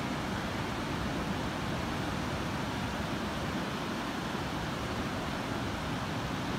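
Ocean surf breaking on a wide, flat beach, heard as a continuous, even rush with no single wave crash standing out.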